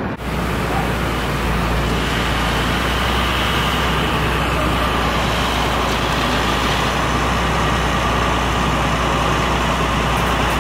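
City street traffic: vehicles running and passing steadily, with a constant low engine rumble under the noise of the street.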